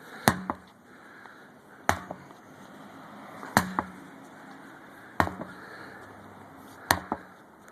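A sledgehammer striking a large tire in a steady rhythm: five heavy blows about a second and a half apart, each with a short low ring and a small rebound knock.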